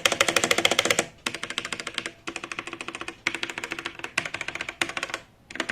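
Rapid typing on a Cosmic Byte Vanth mechanical keyboard with Outemu Red linear switches: fast strings of key presses in several runs with brief pauses between them.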